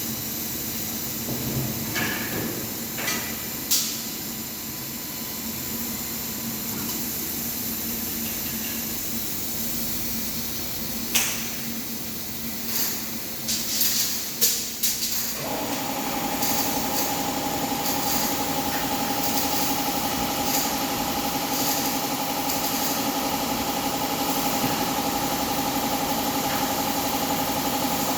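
A 100-watt CNC laser machine running with a steady hum and hiss, with scattered sharp clicks and taps in the first half. About halfway through, a steady pitched motor drone starts and carries on.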